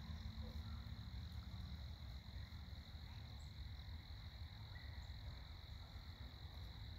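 Quiet outdoor ambience: a steady high-pitched insect chorus over a constant low rumble.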